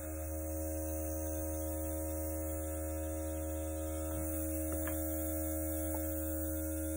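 Compressor of a Luminess makeup airbrush running with a steady hum, and a faint hiss of air from the airbrush as it sprays makeup onto the face.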